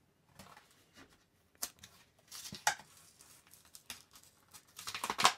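A Matchbox blister card being torn open: the plastic blister and its card backing peel and rip away from the printed card in a run of sharp crackles and tears, loudest near the end.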